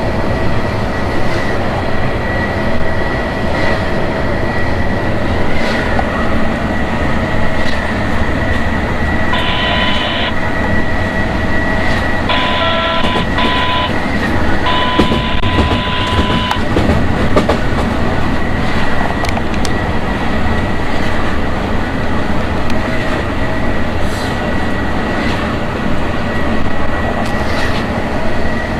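KZ8A electric locomotive running steadily under a freight train, with continuous rail and machinery noise and a steady high tone. From about ten to sixteen seconds in, four electronic beep tones of different lengths sound over it.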